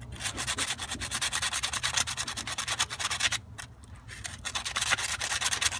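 Sandpaper rubbed back and forth in quick strokes over a brass radiator fitting, cleaning the metal to prepare it for soldering. The rubbing pauses briefly a little past the middle, then picks up again.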